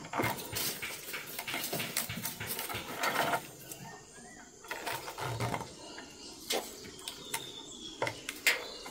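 Nylon rope being handled and knotted while rigging plastic chicken feeders: quick runs of rustling and clicking, a short lull, then more rustling with a few sharp clicks near the end.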